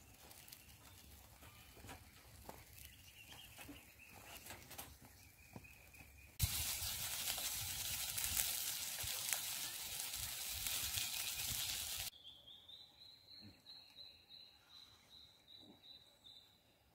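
Sausages and sliced onions sizzling in a frying pan on a campfire grill: a loud, even hiss that cuts in about six seconds in and stops abruptly about six seconds later.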